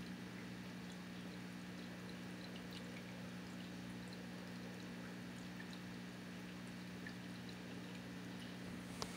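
Quiet room tone: a steady low hum under a faint hiss, with scattered faint ticks and one sharp click near the end.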